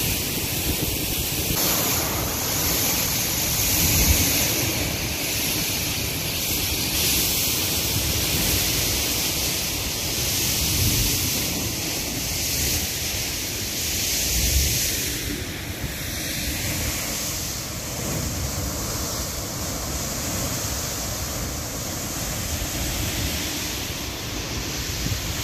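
Water from an open dam floodgate rushing down a concrete spillway channel, a steady noise of white water and spray. Wind buffets the microphone unevenly.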